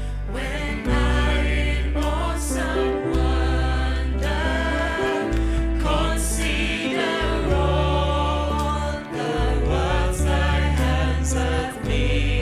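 Gospel worship music: a choir singing over a band, with long held bass notes and a few cymbal crashes.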